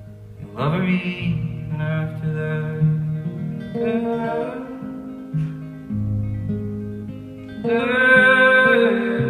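A live band plays an instrumental passage: plucked guitar over a steady bass line, with a lead melody of held notes. The lead slides up into a note about half a second in and is loudest in the last second and a half.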